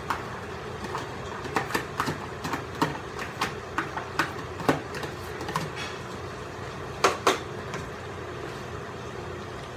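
A metal spoon tapping and scraping against a plastic container and the rim of a cooking pot as shredded carrots are knocked into the pot: a quick, irregular series of sharp clicks with two louder knocks about seven seconds in, over a steady low hum.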